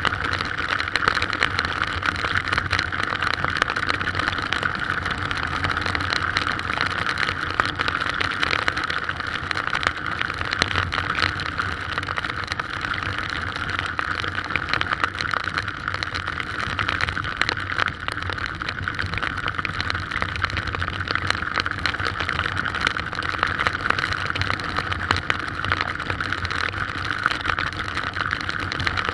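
Strong wind and heavy rain: a steady rushing noise with a low rumble, peppered with a dense crackle of raindrops.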